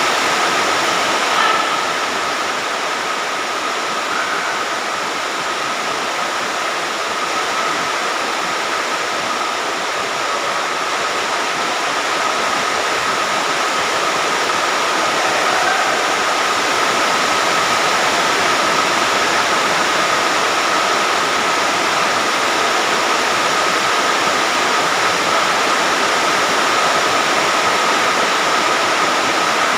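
Steady heavy rain, an even hiss with no let-up. A thin steady high tone runs through it.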